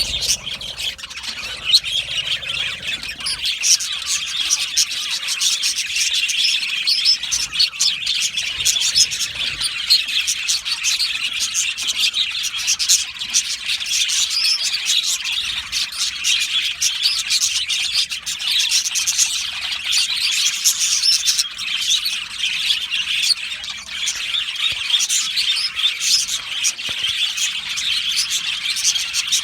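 A budgerigar colony chirping and chattering together, a dense and continuous mix of many birds' warbling calls with occasional squawks.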